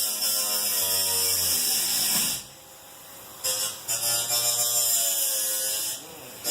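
Angle grinder cutting sheet metal: a whining tone with a harsh, hissing edge, in two long cuts separated by a pause of about a second near the middle.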